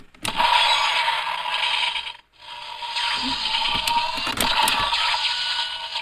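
Kamen Rider DX Desire Driver toy belt with the Powered Builder Buckle: a few plastic clicks as the buckle's handle is worked, then the toy's speaker plays loud, noisy mechanical-style sound effects. These come in two runs with a short break about two seconds in, as the belt charges up for the Gigant Strike finisher.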